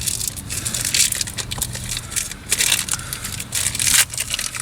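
A replacement-part package being opened by hand, with irregular crinkling and crackling of the wrapping.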